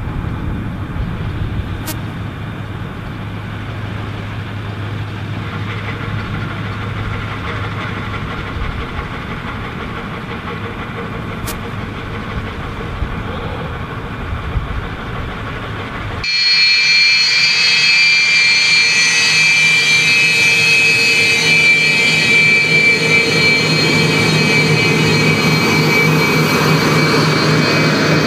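Heavy army truck engine running with a low rumble. About sixteen seconds in the sound cuts suddenly to a louder jet engine whine with high steady tones.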